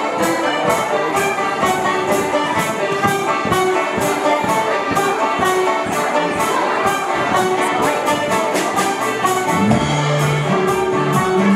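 Live band music with a steady, jingling beat about three times a second. A deeper held note comes in near the end.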